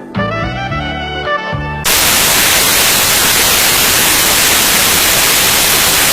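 Music with plucked guitar notes cut off abruptly about two seconds in by loud, steady static hiss.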